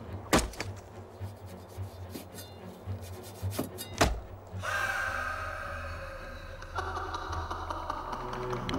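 A meat cleaver strikes a wooden chopping block twice, about four seconds apart, with lighter knocks between. From about halfway through, background music holds a sustained chord.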